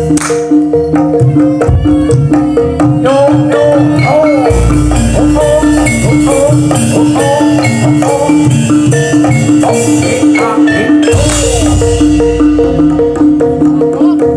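Live Javanese barongan accompaniment music: an evenly repeating pulse of pitched metal percussion over drumming. From about 4 s to 11 s a wavering melody line and heavy low booming join in.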